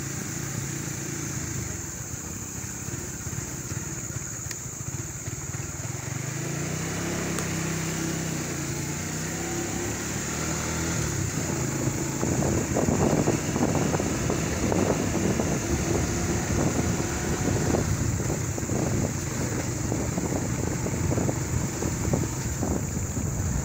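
Motorcycle engine running as it is ridden over a rough dirt track, its pitch rising and falling with the throttle. It gets louder and rougher from about halfway through.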